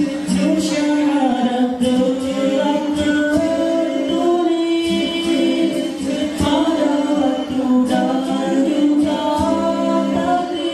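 Male nasyid group singing a cappella in close harmony into microphones, low voices holding long sustained notes while a higher voice moves above them.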